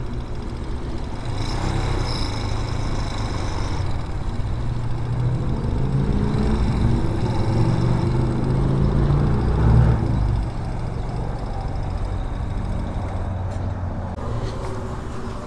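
A BSR Raven 250 dual-sport motorcycle's 229cc air-cooled single-cylinder engine running at low speed. The note climbs a little, then drops back about ten seconds in as the bike slows to a stop.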